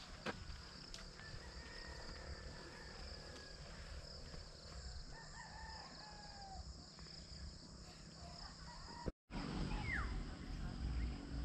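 Distant roosters crowing faintly, several drawn-out calls, over a steady high drone of insects. The sound drops out for a moment about nine seconds in.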